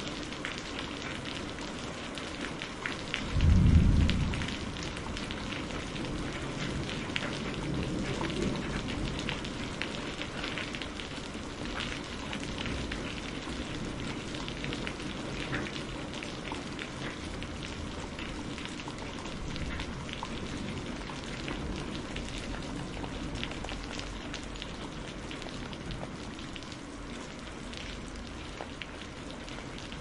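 Steady heavy rain falling, with many close drops ticking. About three and a half seconds in, a loud, low clap of thunder rolls for about a second, followed a few seconds later by a softer low swell.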